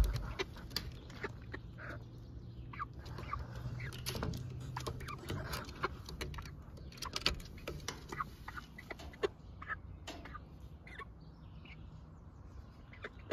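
Brown hens making soft, short clucks and calls, scattered among light taps and scratches.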